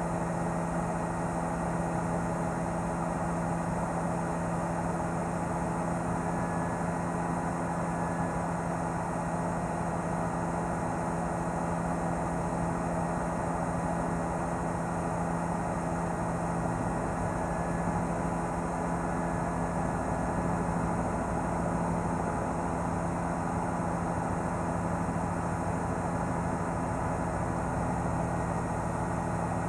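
Steady drone of a helicopter's engine and rotors, an even hum with a constant hiss that does not change.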